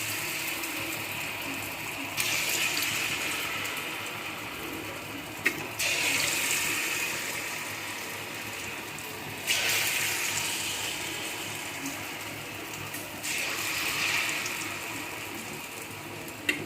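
Suzhiyam balls in maida batter deep-frying in hot oil in a kadai: a steady sizzle that jumps up in level about every three to four seconds and then slowly eases off.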